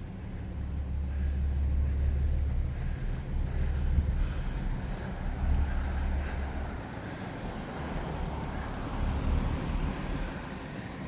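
Fire truck's diesel engine idling steadily with a low rumble that eases off about seven seconds in.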